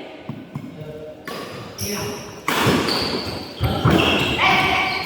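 Indoor badminton doubles play: sharp hits and footfalls on the court, echoing in the hall, with a voice call held for about a second near the end.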